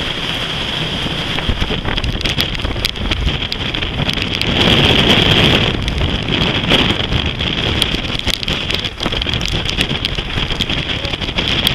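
Storm wind buffeting the microphone on an open dive boat in rough, breaking sea. A stronger gust swells up about four and a half seconds in and lasts over a second, with scattered sharp crackles throughout.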